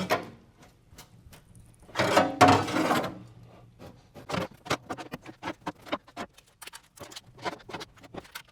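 Hand work on a pontoon deck's trim and plywood. A loud rough burst of about a second comes near two seconds in, then many irregular small clicks and taps of tools and hardware being handled.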